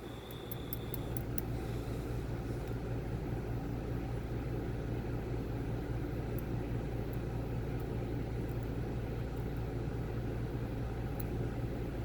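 Steady low hum, with a few faint small clicks of tools working at a stubborn spring in a disassembled lock cylinder, mostly about a second in.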